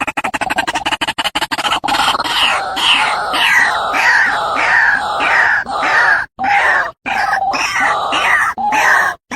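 White-breasted waterhen calling: a rapid stuttering chatter, then loud harsh calls repeated two or three times a second, broken by a few abrupt short gaps. This is the call played to lure the bird.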